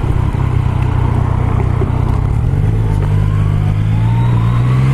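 Yamaha MT-09 SP's 847 cc inline three-cylinder engine under way, running steadily, then climbing through the revs from about halfway in as the bike accelerates.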